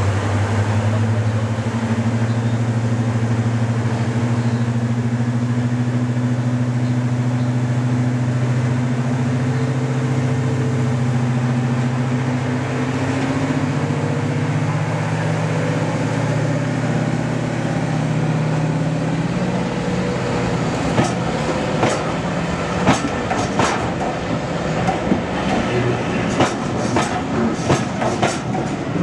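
Class 55 Deltic diesel locomotive's twin Napier Deltic engines running with a steady hum while the train stands. About two-thirds of the way in the engine note fades and a run of sharp clanks and clicks from the train's wheels and couplings takes over.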